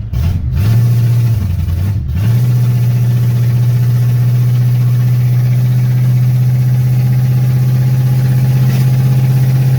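1984 Chevy C10's 305 small-block V8, running loud through new headers with the mufflers cut off. It is revved up about half a second in and eases back, then held at a steady raised rev from about two seconds in.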